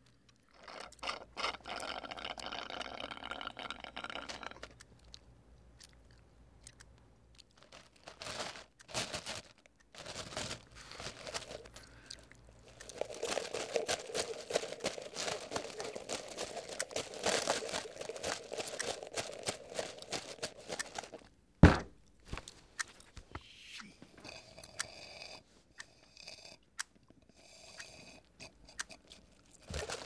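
Foley for an annoying noise in a quiet room: a straw stirring ice in a plastic iced-coffee cup, a dense crunching rattle lasting about eight seconds through the middle. It is followed by a single loud sharp thump, and then fingers tapping on a wooden desk near the end.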